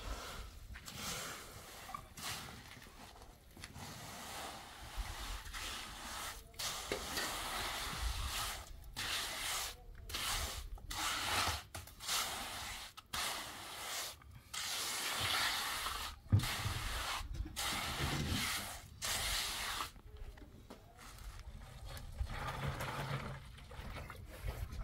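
Hand trowel scraping and smoothing wet cement in repeated strokes, a gritty swish with each pass. The strokes stop about twenty seconds in.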